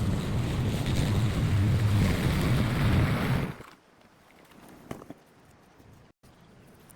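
Lawn mower engine running with a steady low drone and wind noise on the microphone, cutting off abruptly about three and a half seconds in. After that only a faint hiss with a few light clicks.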